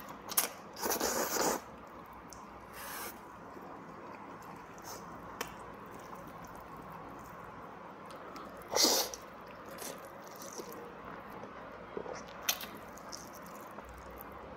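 Person slurping samseon jjajang (black-bean-sauce noodles): two loud airy slurps, about a second in and near nine seconds, and a softer one around three seconds. Small clicks and quiet chewing come between them.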